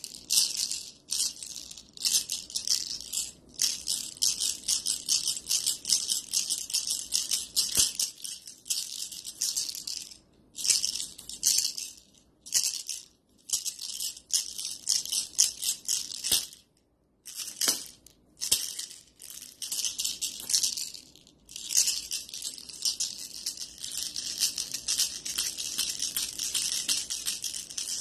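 Small cat toy shaken by hand, rattling in quick, irregular bursts with short pauses between them.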